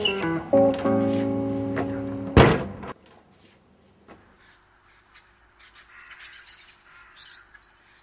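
Guitar soundtrack music with plucked notes stepping down, ending on one loud hit about two and a half seconds in. After that it is quiet, with a faint bird chirp near the end.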